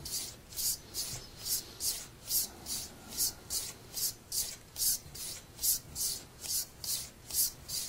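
A straight razor being stropped on a paddle strop: a quick, even train of short hissy swishes, about two and a half strokes a second, as the blade is passed back and forth along the strop to finish the edge before shaving.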